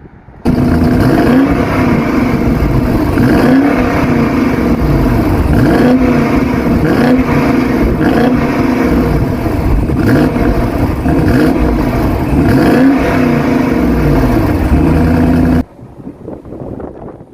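BMW N63 twin-turbo V8 of a 2022 BMW X5 M50i, revved over and over through its exhaust, the pitch climbing and falling with each rev. It cuts in abruptly about half a second in and cuts out abruptly shortly before the end.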